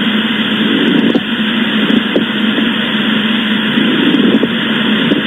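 Recorded pleural friction rub as heard through a stethoscope: a steady hiss with faint scratchy rubs about every second, the sign of inflamed pleural layers rubbing against each other.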